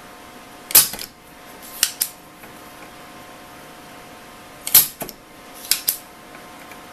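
Spring-loaded solder sucker (desoldering pump) firing twice to pull molten solder off a circuit-board joint: each shot is a sharp snap, followed about a second later by two quick clicks as the plunger is pushed back down and latched.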